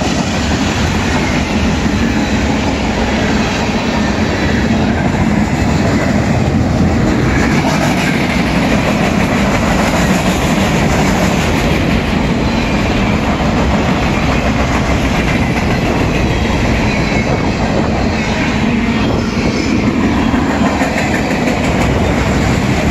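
Freight cars of a long mixed manifest train (boxcars, gondolas, tank cars) rolling past, a loud, steady noise of steel wheels running over the rails.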